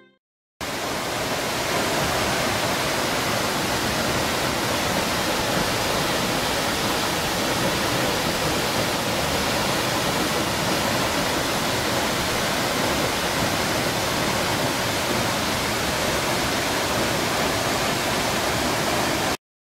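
Waterfall: a steady, powerful rush of falling water, cutting in abruptly about half a second in and stopping abruptly just before the end.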